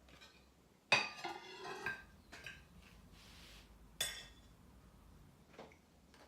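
Cutlery clinking against dishes: a sharp clink with a short ringing clatter about a second in, another clink about four seconds in, and a fainter tap near the end.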